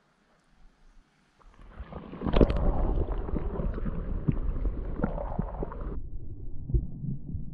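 Muffled water sloshing and gurgling with small knocks, heard through a camera held in the lake water, starting about two seconds in after near silence. About six seconds in it turns duller, leaving only a low rumble.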